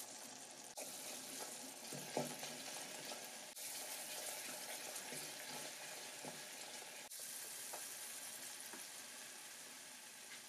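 Butter with grated garlic and red chili flakes sizzling quietly in a stainless steel saucepan on low heat, with a wooden spoon stirring through it now and then.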